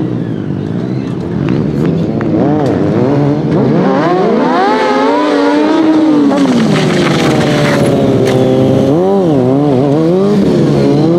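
Stunt motorcycle engine revving during a wheelie, its pitch swinging up and down as the throttle is worked, with a second wave of revs near the end.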